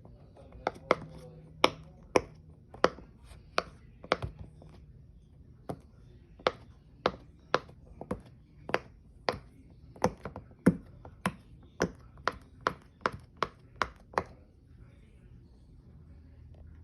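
A large silicone pop-it fidget toy having its bubbles pressed one after another: about two dozen sharp pops, roughly two a second, stopping a couple of seconds before the end.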